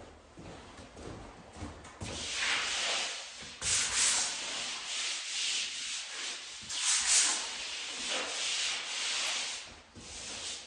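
A hand rubbing over a skim-coated drywall wall in repeated dry swishes, feeling for ridges or bumps in the joint compound. The strokes start about two seconds in.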